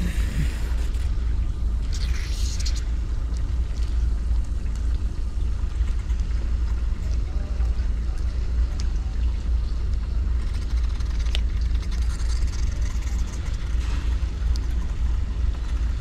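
A steady low machinery rumble, with a few faint light clicks and taps on top.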